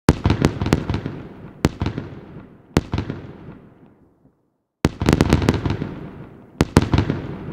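Aerial fireworks shells bursting: a quick volley of sharp bangs with long echoing tails, then two single bangs as the echoes fade away. A second volley starts about five seconds in, with more bangs near the end.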